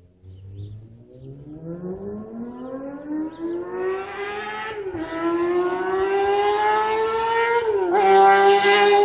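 2006 Honda CBR600RR inline-four sport bike with no exhaust, accelerating hard toward the listener. The revs climb, drop at a quick upshift about halfway through, climb again, and drop at a second upshift near the end, growing steadily louder.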